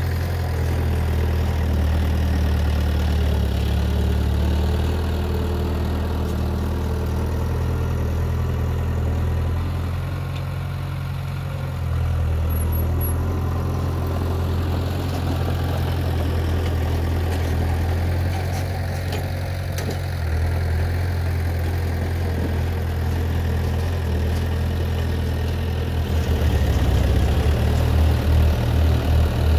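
Heavy diesel engine of earthmoving machinery running steadily, the level dipping briefly near the middle, then a quick pulsing beat for the last few seconds.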